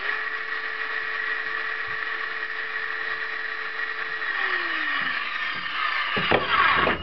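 Delta cordless circular saw running free with no cut, powered by a converted 22 V LiPo battery pack. Its motor and blade give a steady high whine for about six seconds and then stop. A lower tone in the whine drops in pitch a little after four seconds in.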